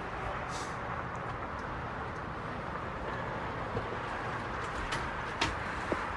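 Steady background ambience, an even low hiss with no distinct source, with two faint clicks near the end.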